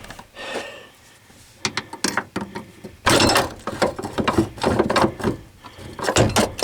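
Metal knocking, rattling and scraping as a loosened truck door hinge is wrestled out of its tight mounting spot: a few scattered clicks, then from about three seconds in a dense, irregular run of clanks and scrapes.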